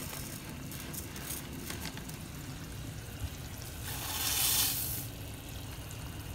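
Light rustling and small clicks as rice is scooped from a plastic bag, then about four seconds in a cupful of white rice is poured into a pot of boiling water, setting off a rush of hissing that lasts about a second.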